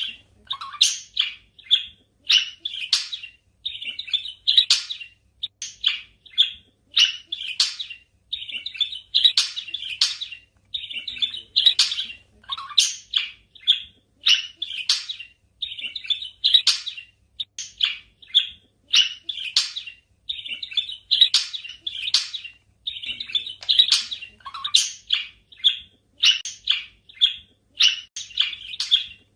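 Budgerigars chirping: short, quick chirps in clusters that repeat every second or two.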